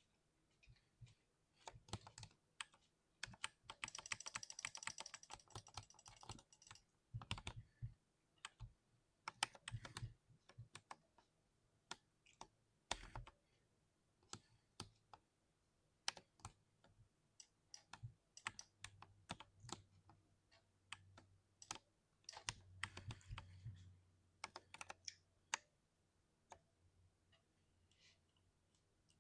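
Typing on a mechanical keyboard: irregular, sharp key clicks, with a fast, even run of keystrokes about four seconds in and another quick flurry later on.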